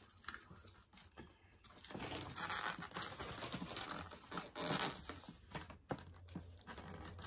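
Crinkling and rustling of food wrapping being handled, with small clicks and mouth sounds of chewing, busiest in the middle of the stretch.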